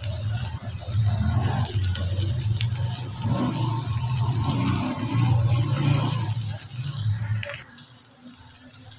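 Okra, onion and tomato frying in an aluminium pot with a steady high sizzle, under a louder low rushing noise that stops about seven and a half seconds in.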